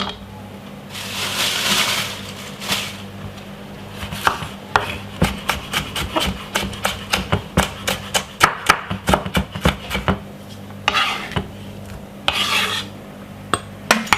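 Knife cutting sweet pepper on a cutting board: a run of quick sharp taps, about three a second, with longer scraping sweeps across the board near the start and again near the end.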